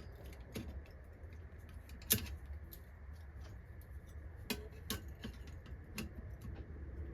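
Pieces of thin sheet steel being handled and laid over each other: a handful of light, scattered clicks and taps, the sharpest about two seconds in, over a low steady hum.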